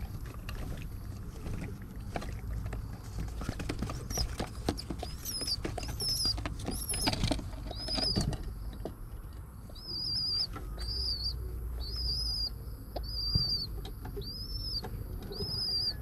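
Pigeon squab peeping: high, thin arched squeaks repeated about once every three-quarters of a second from about four seconds in. Scuffling and wing fluttering in the nest box during the first half, while the adult pigeon is at the squab's head in the feeding posture.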